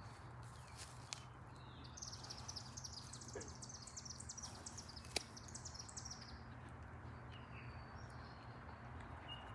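A small bird singing a rapid run of high, repeated notes for about four seconds, with a sharp click about five seconds in, over a steady low hum.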